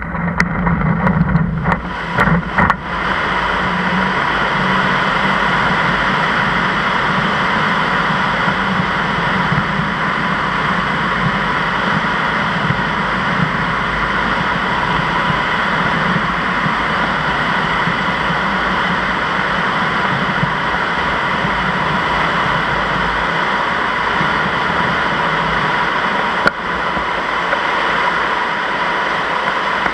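Air rushing past a Zugvogel 3a glider during its launch. It swells quickly with knocks and rattles from the ground run in the first few seconds, then holds a loud, steady rush through the climb. A single click comes near the end.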